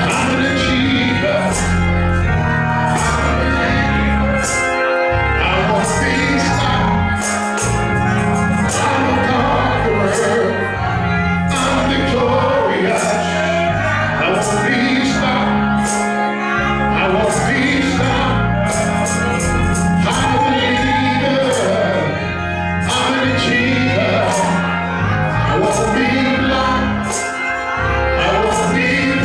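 Live gospel music: a man singing into a microphone over instrumental backing with steady low notes and sharp percussion hits keeping the beat.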